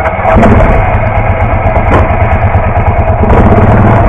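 ATV engine running loudly and steadily under some throttle while the quad is backed up a short way.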